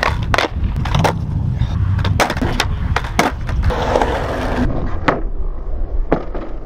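Skateboard wheels rolling on concrete, with repeated sharp clacks of boards hitting the ground.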